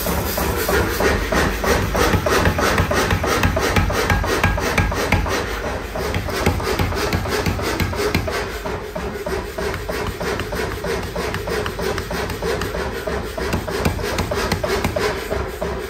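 Mechanical power hammer pounding a red-hot steel billet made from nails on its anvil, in a rapid, steady run of blows.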